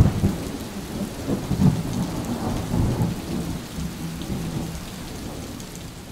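Rain falling with a low, rolling rumble of thunder, slowly fading out.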